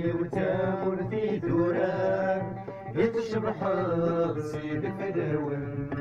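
Music with a chanted vocal melody over a steady low accompaniment.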